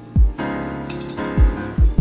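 Background music: keyboard chords over a deep kick drum at an even beat, about one thump every 0.6 seconds.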